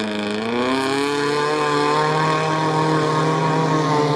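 Off-road vehicle engine revving hard: its pitch dips briefly at the start, then climbs and holds steady at high revs.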